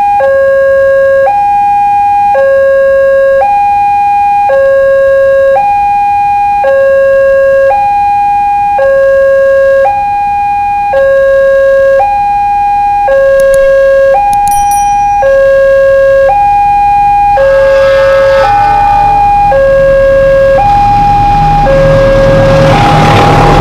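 Railway level-crossing warning alarm sounding, an electronic signal switching between two tones, each held about a second. From about two-thirds of the way in, the rumble and rushing of the approaching train builds under it and grows loudest near the end.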